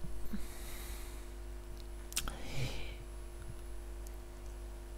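A person breathing close to the microphone over a steady low hum. There is a sniff-like breath about half a second in, then a click a little after two seconds followed by an exhale.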